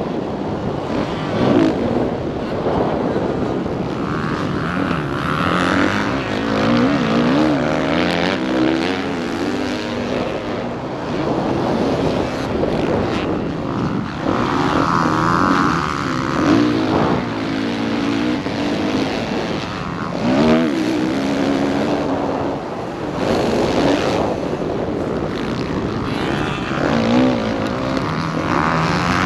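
Motocross dirt bike engine heard from a camera mounted on the bike, revving up and falling back again and again as the rider works the throttle around the track, over a steady rush of wind noise.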